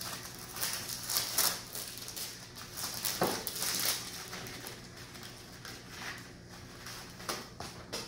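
Plastic Oreo cookie wrapper crinkling and rustling in irregular bursts as cookies are pulled out of the package.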